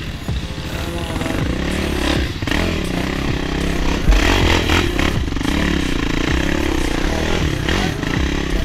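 Quad bike engine revving up and down on a rough trail, its pitch rising and falling, with a heavy low thump about four seconds in as the quad lurches into a dip.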